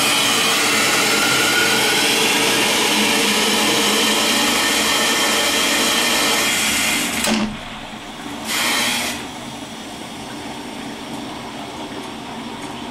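Water rushing through the plumbing into a water heater tank, a loud steady hiss with a faint whistle, stirring up rust and sediment in the bottom while the tank is being drained. About seven seconds in the flow drops sharply to a quieter rush, with one brief surge a little later.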